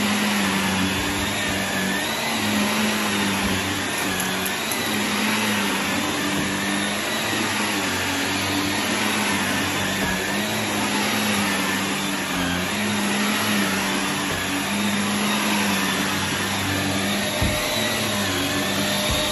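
Shark NV380 upright vacuum cleaner running steadily on carpet, its whine wavering slightly in pitch as it is pushed back and forth. A light knock near the end.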